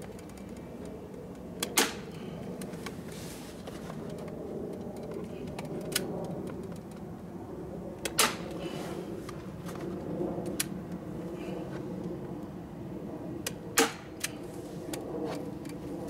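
Staple gun driving staples through roofing felt into a wooden beehive: sharp clacks a few seconds apart, three of them louder, over a steady low hum.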